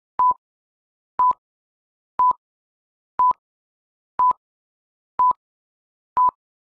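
Film-leader countdown beeps: a short beep of one steady pitch once a second, seven times, with silence between.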